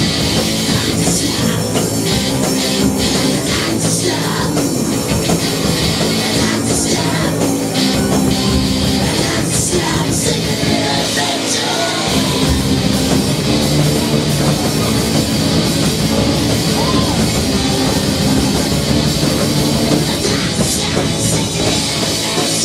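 A rock band playing loudly live, with drums and amplified instruments in a dense, steady wall of sound.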